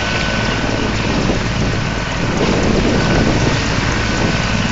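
Mil Mi-24V/35 helicopter running on the ground before takeoff: its twin turboshaft engines and main rotor make a loud, steady rush of noise with a low throb underneath.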